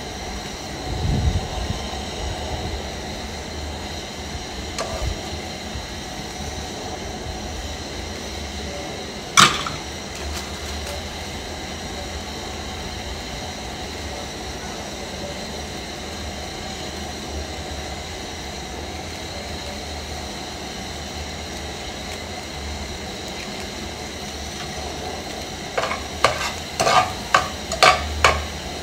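Egg frying in a steel pan over a gas burner, a steady sizzle throughout. A single sharp metal clink about nine seconds in, and near the end a quick run of clinks as the metal slotted spoon scrapes and taps the pan.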